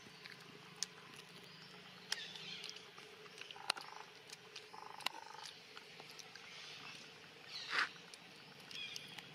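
Faint animal sounds: a few short high chirps and squeaks and scattered clicks over a steady low hum, with one louder short call near the end.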